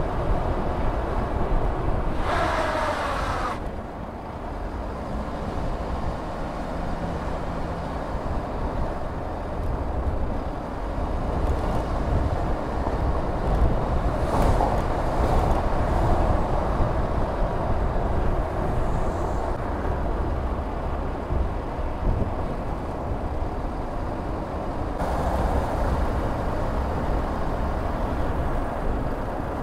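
A car driving on studless winter tyres over packed snow and ice, heard from inside the car: a steady low rumble of tyres and engine. A short falling squeal sounds about two and a half seconds in.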